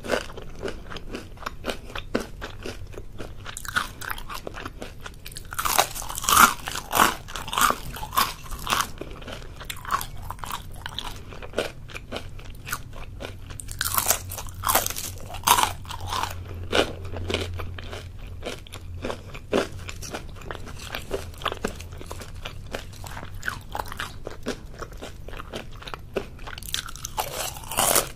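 Close-up crunching of crisp battered tempura fritters being bitten and chewed, in loud bursts of crackling crunches a few seconds apart with quieter chewing between.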